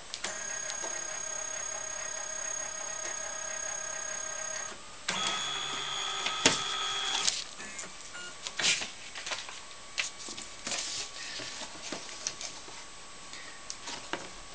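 Canon 9000F flatbed scanner's carriage motor whining steadily for about four and a half seconds as it scans a book page, then a second, shorter whine of a different pitch with a sharp click in the middle. After that come scattered light knocks and clicks as the book is lifted off the glass and set back down.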